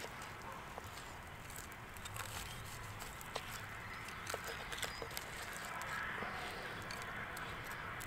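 Knife slicing through a thick grilled sirloin steak on a wooden chopping board, with scattered light clicks and taps of the blade and fork.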